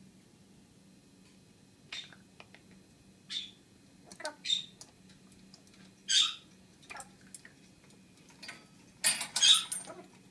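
African grey parrot making short, scattered squawks and clicks, with a dense cluster of clicking and rattling near the end.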